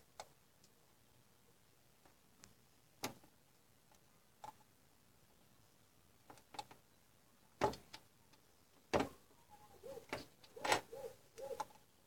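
Sparse, faint clicks and knocks from a motherboard and soldering iron being handled. About ten seconds in they come closer together, along with a few short pitched chirp-like sounds.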